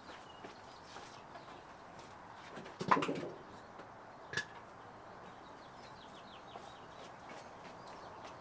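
Quiet outdoor background with faint bird chirps. A dull thud comes about three seconds in and a sharp click about a second later.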